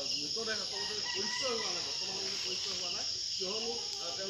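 Steady, high-pitched chorus of insects such as crickets, shrilling without a break.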